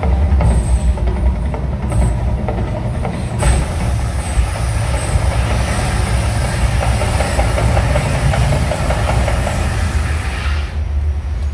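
Mirage volcano attraction erupting: a loud, steady deep rumble with the rush and crackle of gas fireballs. It eases off near the end.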